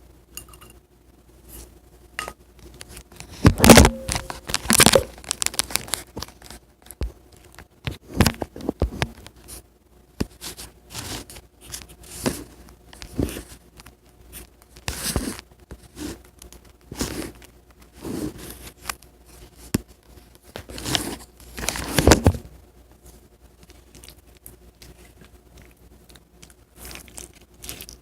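Clear slime with toppings mixed in being squeezed and stretched by hand: irregular crackles, pops and squelches come in bursts. The loudest bursts fall early on and again about three-quarters of the way through.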